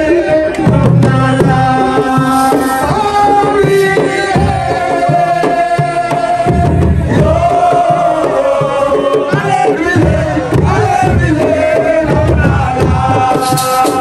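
Live assiko music: a voice singing long, sliding lines over hand-drum strokes, with a shaker rattle coming in near the end.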